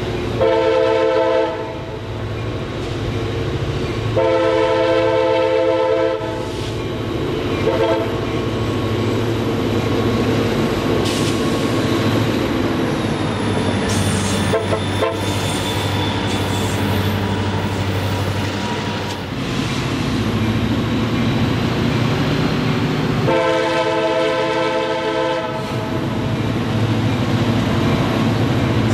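Diesel road locomotive passing at low speed, its multi-note air horn sounding a long blast, a second long blast and a short toot in the first eight seconds, then another long blast about 23 seconds in. Under the horn the diesel engine keeps up a steady low rumble.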